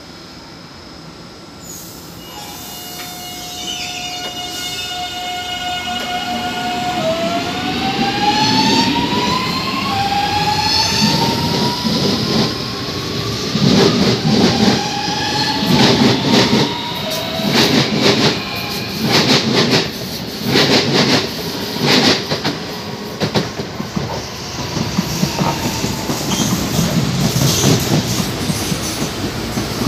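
Electric commuter train pulling away: its traction motors whine in several tones that climb in pitch as it gathers speed, then its wheels clack loudly over the rail joints at a steady rhythm, about one knock every second and a half, with a running roar.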